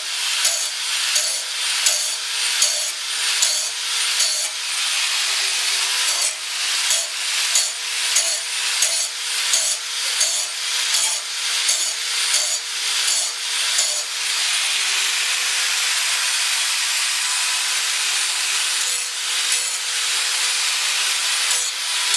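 A grinder sharpening the blade of a Snapper Comet riding mower, scraping in repeated back-and-forth strokes about one and a half a second, held in one steady grind for a few seconds past the middle, then stroking again near the end.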